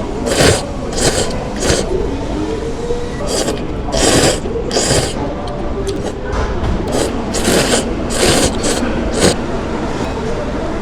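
A series of short scraping or rustling noises, about one or two a second and unevenly spaced.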